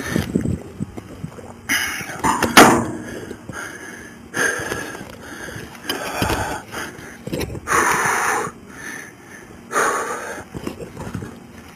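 Heavy, hissing breaths close to a body-worn camera's microphone, a few seconds apart, over the rustle of clothing and gear, with one sharp knock about two and a half seconds in.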